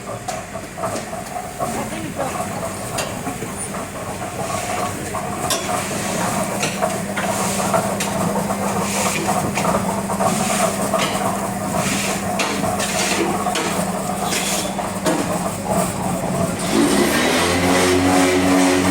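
Machinery running with a steady hum, with a run of knocks and clatter in the middle. A second, deeper motor starts up near the end.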